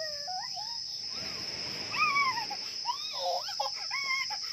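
A toddler squealing and babbling excitedly in high, sliding tones, without words, over a steady high-pitched drone of insects. A brief rustling noise comes about a second in.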